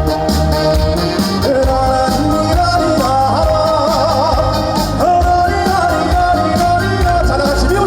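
Live band playing an upbeat trot song with a steady beat; a wavering melody line, voice or lead instrument, comes in about a second and a half in.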